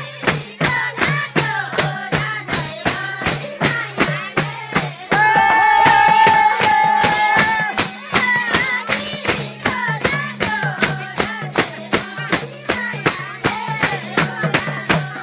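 Magar folk song in the thumke bhaka style: a singing voice over a steady beat of about four jingling strikes a second. About five seconds in, a long, loud held note lasts roughly three seconds.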